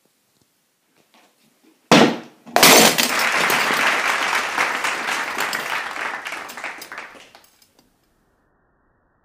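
Glass shattering: a sharp crash about two seconds in, then several seconds of noisy breaking that fades out.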